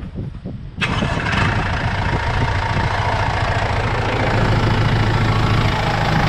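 An engine cranks and catches about a second in, then settles into a steady idle. It runs on a freshly tightened AC compressor drive belt that had been slipping and flopping loose.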